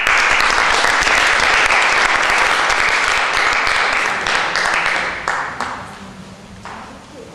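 Audience applauding, beginning all at once, loud for about five seconds, then thinning out into scattered claps and fading away.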